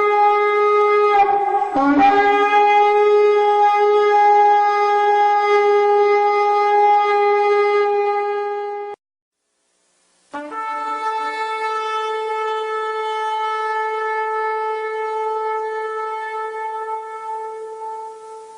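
Shofar blown in two long held blasts, each scooping up from a lower note before holding one steady tone; the first breaks off cleanly and the second starts about a second later and fades away near the end.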